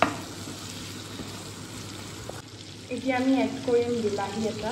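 Mutton pieces sizzling in hot oil in a nonstick wok as they are stirred with a wooden spatula, with a sharp knock at the very start.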